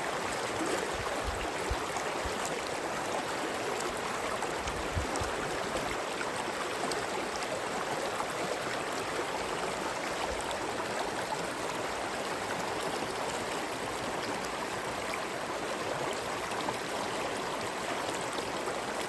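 Forest stream running steadily, a continuous rush of water flowing over rocks.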